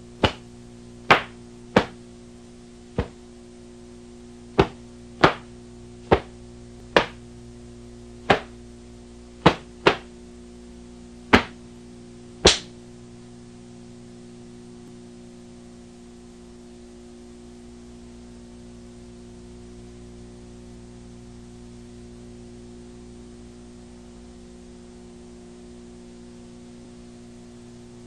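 Sharp cracks of a taekwondo uniform snapping with each strike and kick of a form, about thirteen at irregular spacing over the first twelve seconds, some in quick pairs. After that only a steady electrical hum remains.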